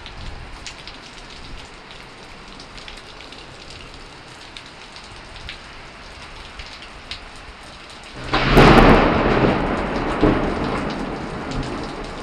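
Steady heavy rain falling, with scattered close drips ticking. About eight seconds in, a sudden loud thunderclap cracks and rolls on, slowly fading.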